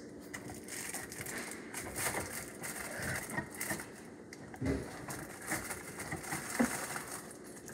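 Quiet rummaging through a pantry: scattered small knocks and rustles of items being handled on wire shelves, with one louder knock a little past halfway.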